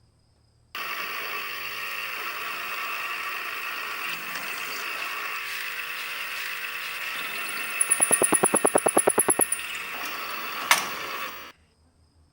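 A workshop machine runs steadily with a mechanical whirr, starting and stopping abruptly. Near the end it rattles rapidly, about a dozen clicks a second, followed by one sharp click just before it stops.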